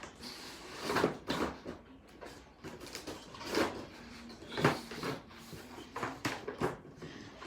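Cardboard and plastic packaging being handled and pulled out of a box: several separate sliding, scraping rustles, the loudest about a second in and twice more in the middle.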